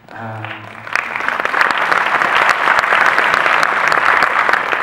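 Audience applauding, swelling about a second in and staying loud and dense.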